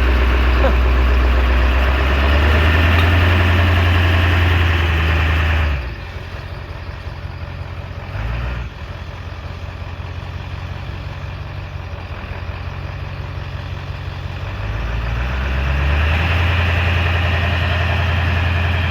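Pickup truck engine running steadily, loud for the first six seconds, dropping suddenly to a quieter hum, then loud again from about fifteen seconds.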